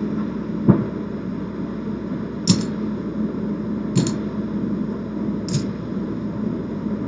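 Casino chips clicking as they are set down and stacked on a craps table: a sharp click less than a second in, then three short clicks spaced about a second and a half apart, over a steady fan-like hum.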